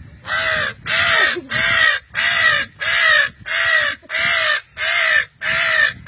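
A man imitating a crow's cawing with his voice: about ten harsh caws in a steady rhythm, nearly two a second.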